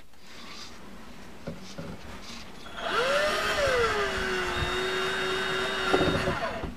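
Red cordless drill working into the wooden railing after a few light knocks. About three seconds in its motor spins up with a rising whine, drops to a lower steady pitch as it works into the wood, and stops a little over three seconds later.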